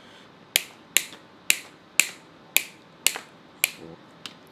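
Hand cable cutter working through cable, a run of eight sharp clicks at a steady pace of about two a second.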